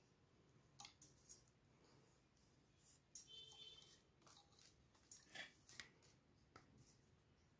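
Near silence with a few faint clicks and taps of small wooden parts and a steel ruler being handled on a worktable, and a brief faint scrape about three seconds in.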